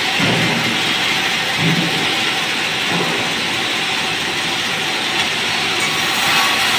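Sawmill band saw running and cutting through a merbau hardwood plank: a loud, steady noise of the blade in the wood, with a few brief low bumps in the first three seconds.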